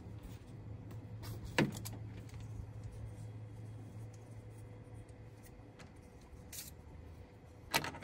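Handling noise: two sharp clacks of hard objects knocked together, about one and a half seconds in and again near the end, with a few fainter clicks between, over a low steady hum that fades out about five seconds in.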